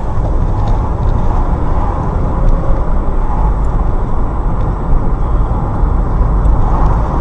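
Steady engine and road noise from a moving vehicle, a dense low rumble that holds throughout.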